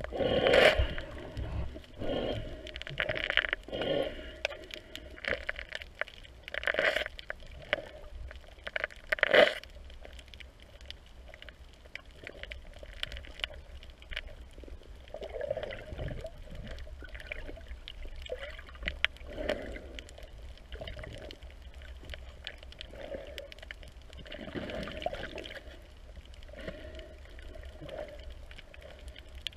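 Water sloshing and gurgling around an underwater camera, muffled, with irregular loud surges during the first ten seconds, then a lower, steadier wash.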